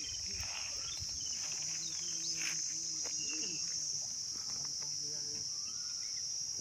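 Steady high-pitched buzzing of an insect chorus, with faint voices talking in the background.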